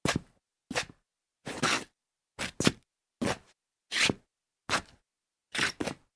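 Shoes scuffing on a tile floor as someone walks: a short scraping step a little under every second, some steps a quick double scrape, with silence between.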